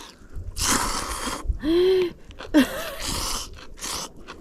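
Ramen noodles slurped in two long pulls, each about a second, with a short hummed 'mm' between them.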